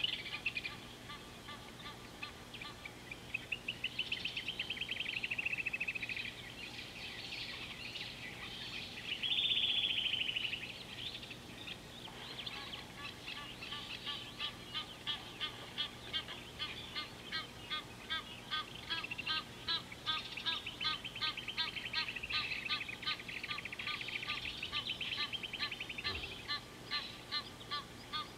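Several birds calling: buzzy trills in the first half, then a long run of repeated calls, about two a second, starting about halfway through.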